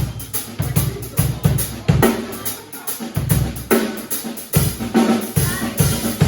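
Drum kit playing a steady beat: bass drum and snare hits with cymbals ringing above.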